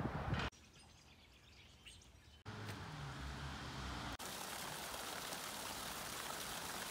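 Outdoor ambience in short cuts: a quiet stretch with faint bird chirps, then a low steady hum, then from about four seconds in a steady hiss of water spilling off the top of a concrete retaining wall.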